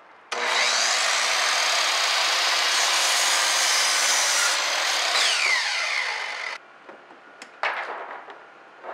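Electric compound miter saw spinning up with a rising whine and cutting through a wooden board, a loud steady run of about six seconds that stops abruptly. It is followed by a few sharp clicks and a knock.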